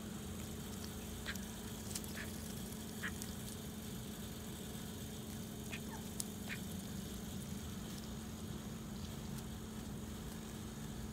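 Call ducks giving a handful of short, soft quacks, about five spread over the first seven seconds, over a steady low hum.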